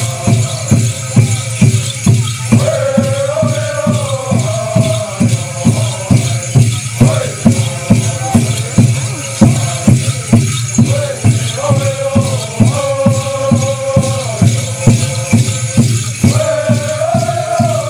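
Native American animal dance song: voices chanting together in long held phrases over a steady drumbeat, with rattles shaking along. The chant breaks off briefly a few times while the drum and rattles keep going.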